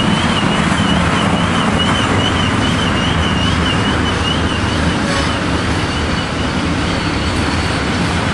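Freight cars rolling past with a steady wheel rumble on the track, and a high, wavering wheel squeal on the curve that fades about four and a half seconds in; a fainter, steadier squeal comes in near the end.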